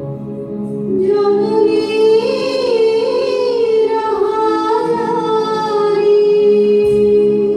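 Song playing: a woman's voice singing long held notes that waver and bend in pitch, over steady sustained accompaniment.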